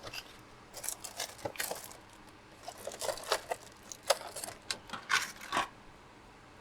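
Scattered light clicks and rustles of small objects being handled, as when a coil of bonsai wire is picked up and worked with.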